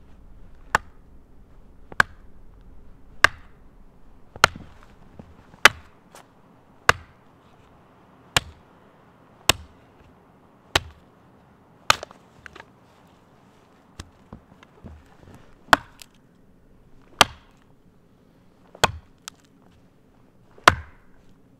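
Hatchet chopping into a branch, a steady run of sharp single blows about one every second and a quarter, each a crisp crack of steel biting wood.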